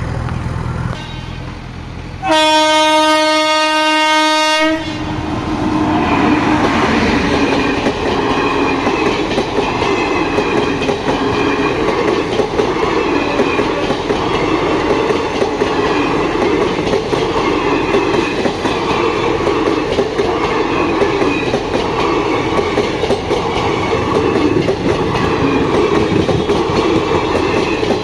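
Indian Railways WAP-5 electric locomotive sounds one long horn blast about two seconds in. Its express train's coaches then pass close by at speed, with the wheels clicking over the rail joints in a steady rhythm.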